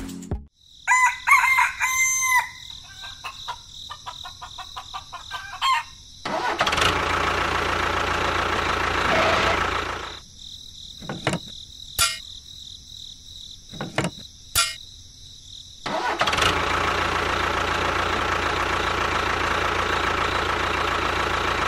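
A rooster crows about a second in. Then a tractor engine runs for a few seconds, stops, and after a few clicks starts again about sixteen seconds in and runs steadily.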